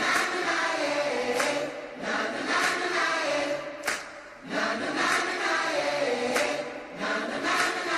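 Background music of chanting, choir-like voices, with a sharp accent about every second and a quarter.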